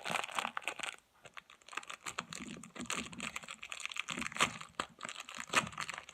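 Plastic packaging crinkling and crackling in quick, irregular clicks as it is handled, with a short pause about a second in.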